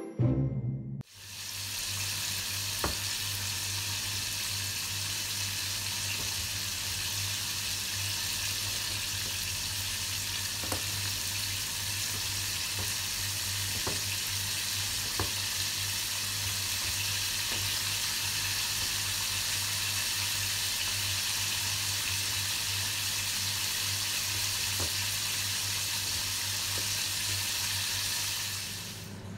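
Hot oil sizzling steadily in a frying pan, with a low hum beneath and a few faint pops; it drops away near the end.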